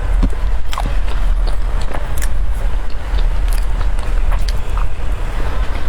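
Scattered sharp clicks and crackles of food or its packaging being handled close to the microphone, over a loud, steady low rumble.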